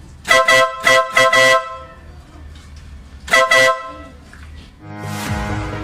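Compact electric horn on a Yamaha Mio i 125 scooter sounding in short honks: four quick beeps, then one more after a pause. Music starts near the end.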